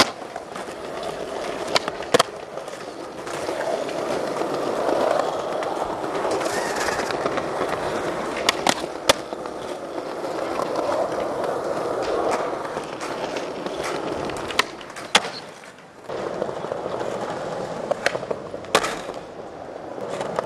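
Skateboard wheels rolling on smooth pavement, with several sharp clacks of the board scattered through. The rolling drops out briefly about three-quarters of the way in, then starts again.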